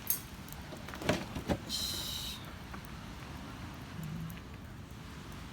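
Campfire crackling with a few sharp pops over a steady wash of surf. About two seconds in, a brief high rasp as the roasting sweet potatoes in the fire are turned.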